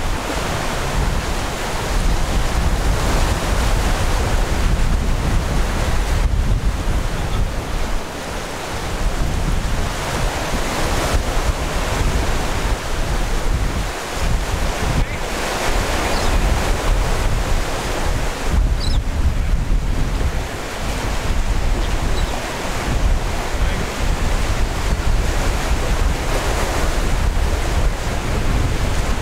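Wind blowing on the microphone over the steady wash of choppy sea water and waves.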